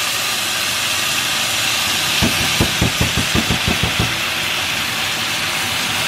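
Steady sizzling hiss from a stovetop pan of onions and melting butter cooking in oil. About two to four seconds in there is a short run of low, uneven sounds.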